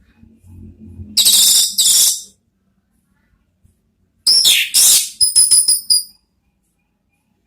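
Orange-headed thrush giving harsh calls: two in quick succession, then after a pause another harsh call that runs straight into a quick string of short, high chirps.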